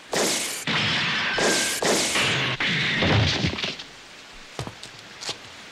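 Anime fight sound effects: a run of loud whooshes and hard impacts, several of them starting sharply one after another, for about four seconds, then two faint knocks.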